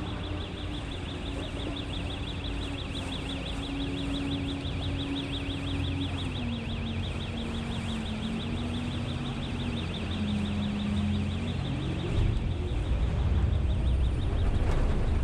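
Boat engine running, its hum stepping down in pitch twice and then rising, with a deeper rumble growing louder near the end. A fast, high-pitched pulsing runs alongside it and stops about twelve seconds in.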